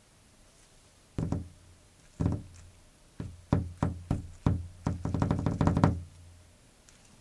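Knocking on a hard surface. Two single knocks come about a second apart, then a run of knocks that quickens into a rapid flurry and stops abruptly.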